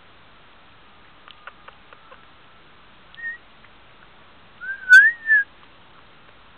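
A short, clear whistle that slides up and then back down about five seconds in. A brief higher chirp comes a couple of seconds before it, and a few faint ticks come earlier.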